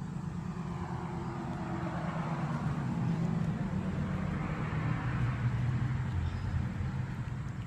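A motor vehicle running close by: a low engine hum with a rushing noise that builds over a few seconds and then fades, as of a car passing.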